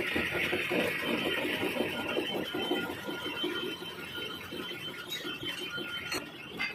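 Metal lathe boring the inside of a bevel-pinion blank: the boring tool cuts with a fast, irregular ticking and scraping over a hiss while the chuck spins, easing off a little past the middle.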